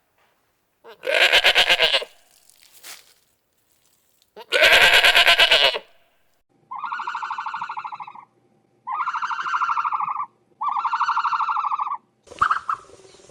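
Animal calls: two loud, wavering cries early on, then from about halfway a run of three evenly pitched, buzzy calls, each about a second and a half long.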